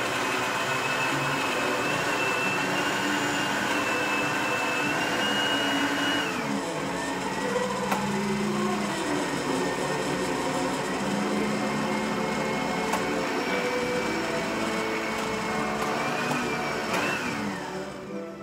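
Countertop blender running, a steady motor whine that drops to a lower pitch about six seconds in, climbs briefly near the end, then winds down as it is switched off.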